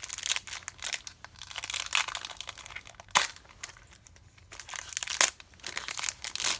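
Foil wrapper of a Pokémon trading card booster pack crinkling and tearing as it is opened by hand, with sharp crackles about three seconds in and again near five seconds.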